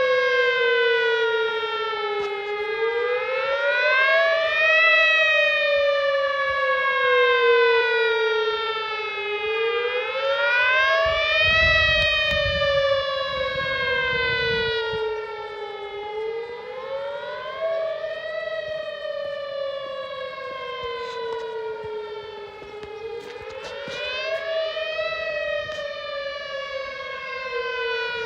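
Whelen Vortex R1 outdoor warning siren sounding a wail at full power: its pitch falls slowly and then climbs back quickly, about four cycles roughly every six to seven seconds. The sound echoes back off nearby buildings and the hills and valleys around it.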